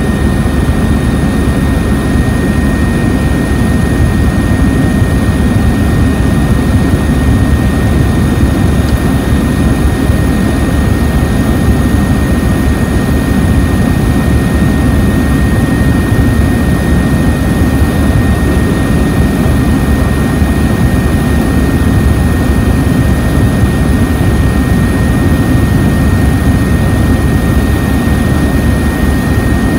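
Steady, loud drone of an aircraft's engine and rushing air in flight, with a thin high whine running through it.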